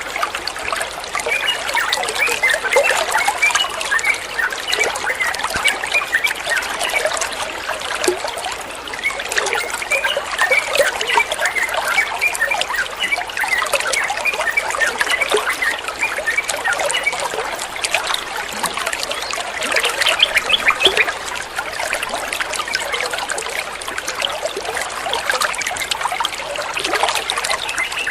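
Flowing water trickling and bubbling steadily, a continuous dense patter.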